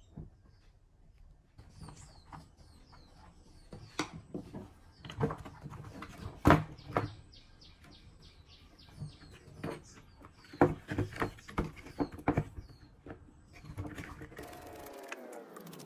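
Knocks and clatter of hard plastic fan housing parts being handled and set down on a wooden table during disassembly, the loudest knocks about six and a half and eleven seconds in. Birds chirp in the background early on, and a hum falls in pitch near the end.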